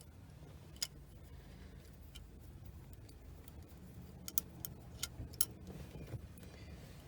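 A few sharp small clicks and taps over a faint low hum, one about a second in and a quick cluster of five or so between four and five and a half seconds in: hands and a tool working the screws and trim of a car's shifter and center console.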